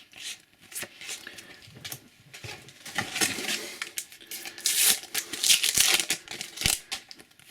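A Panini sticker packet's wrapper being torn open and crinkled by hand, with the stickers handled: irregular crackling rips, loudest about three seconds in and again around five seconds in.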